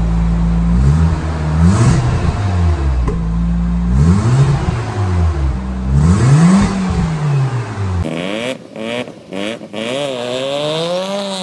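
1986 Mazda RX-7's 13B twin-rotor rotary engine idling and being blipped three times through an HKS single-exit cat-back exhaust, the note rising and falling with each rev. After about eight seconds the sound cuts to a different, higher-pitched engine note that rises and falls.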